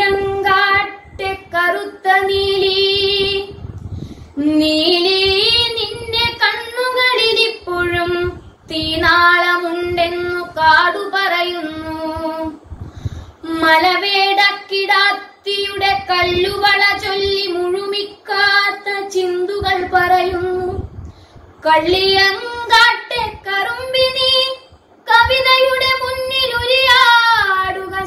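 A boy singing Malayalam verse solo and unaccompanied, in long held phrases with short pauses for breath between them.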